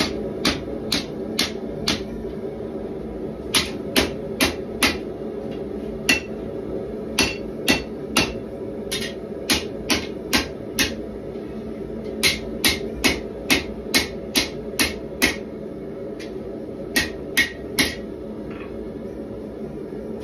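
Hand hammer striking a red-hot 1095 steel bar on an anvil, in bursts of blows about two to three a second with short pauses between, some strikes ringing briefly. A steady hum from the running propane forge lies beneath. The blows stop about two seconds before the end.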